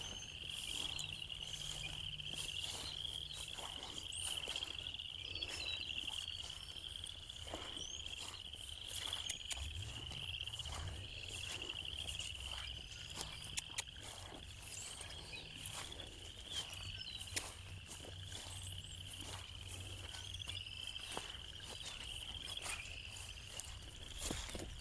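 Steady high-pitched chorus of calling insects with a fine pulsing trill, joined by scattered faint clicks and a low rumble that swells about ten seconds in.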